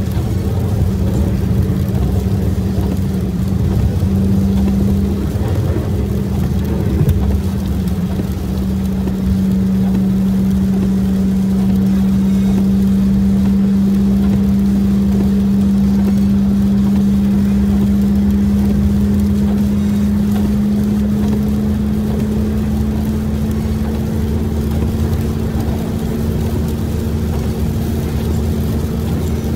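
Vehicle driving on a wet highway, heard from inside the cabin: a steady engine and road drone with a hum that creeps slowly higher in pitch.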